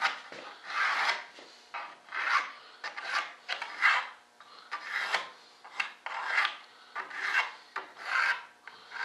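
Rasping hand strokes on balsa wood, about two a second, as a wooden strip of a model-aircraft rudder is shaped to fit by hand.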